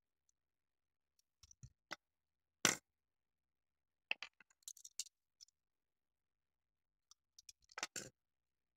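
Small clicks and taps of an N-gauge model railcar body and hobby tools (craft knife, tweezers) being handled: scattered light ticks, one sharper clack a little under three seconds in, a cluster of clicks around four to five seconds, and another cluster near the end.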